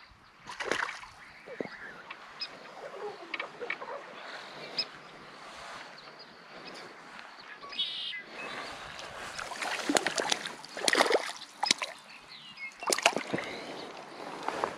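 A hooked bass splashing and thrashing at the pond's surface as it is played in on a tenkara rod: a string of short, irregular splashes, the loudest about ten and thirteen seconds in.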